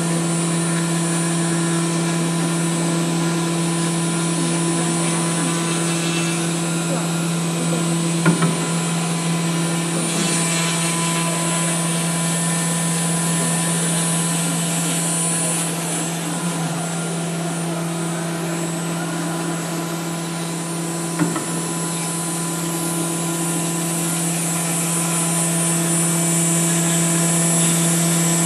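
4-axis CNC router spindle running at 20,000 rpm while carving a foam block: a steady hum with a constant higher tone. Two brief knocks, about eight and twenty-one seconds in.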